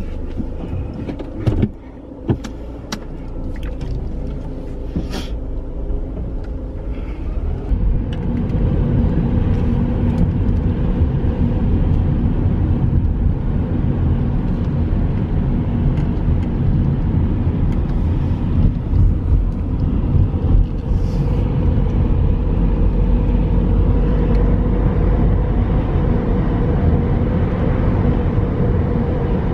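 A car driving: a steady low rumble of engine and road noise that builds up about eight seconds in, after a few short clicks and knocks in the first several seconds.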